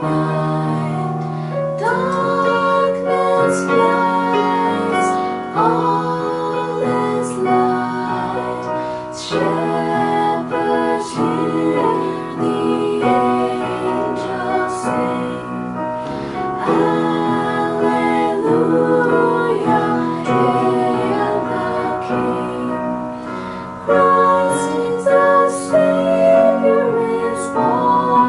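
Female voices singing a slow Christmas carol to piano-style accompaniment on an electronic keyboard.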